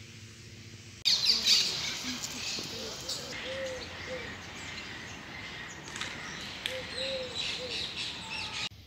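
Birds chirping and calling, with a low three-note call heard twice. It starts suddenly about a second in and cuts off just before the end.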